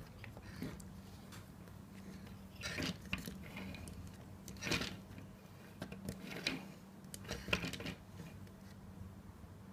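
Plastic parts of a Hasbro Transformers Robots in Disguise Bumblebee toy clicking and rattling in a few short bursts as it is handled and its panels are moved and snapped into place, over a steady low hum.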